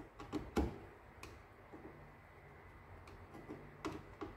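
Scattered light clicks and taps of a screwdriver working at the screws of a bread maker's electronics board inside its plastic housing, a few sharp ticks at irregular intervals, the loudest in the first second.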